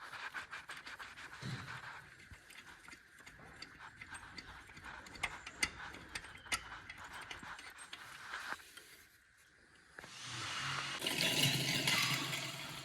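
Hand tools working on a car gearbox: a run of irregular metallic clicks and rattles, then, about ten seconds in, a louder stretch of scraping noise with a low hum.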